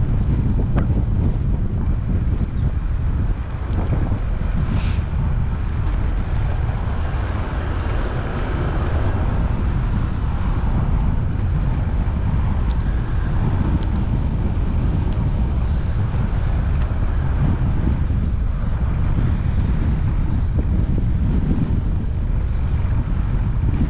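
Wind buffeting the microphone of a camera on a moving bicycle: a steady low rumble. A brief high-pitched sound comes about five seconds in.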